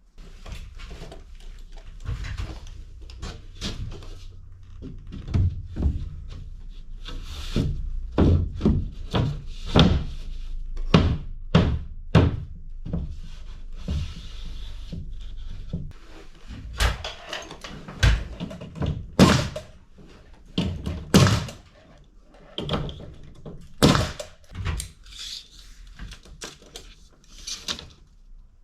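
Irregular knocks and thumps of building work, dozens of sharp impacts at an uneven pace over a low steady rumble, thickest in the second half.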